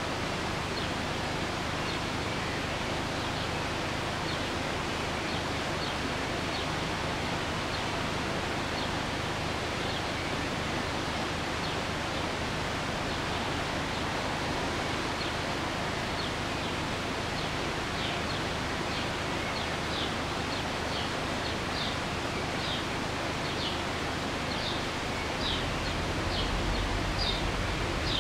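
Steady outdoor background hiss with small birds chirping in short, irregular high notes that grow more frequent toward the end. A low rumble comes in near the end.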